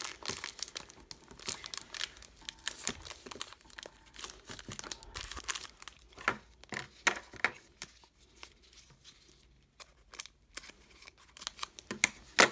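Plastic wrap and packaging of a trading-card box tearing and crinkling as it is opened and the cards are handled, in irregular crackles and clicks, with one sharper, louder click near the end.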